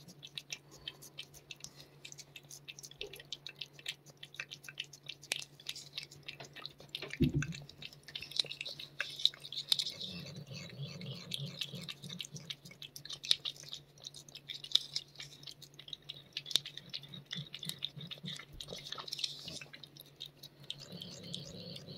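Cat licking a Churu paste treat from a squeeze tube held to its mouth: a run of small, wet, irregular tongue-and-lip clicks.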